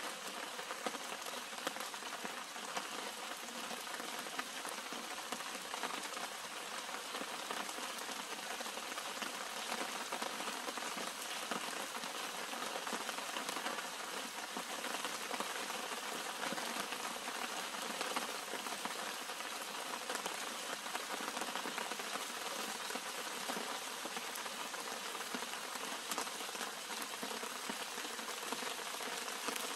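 Steady rain falling on the leaves and blossoms of a flowering shrub: a dense, even hiss of countless small drops tapping on wet foliage.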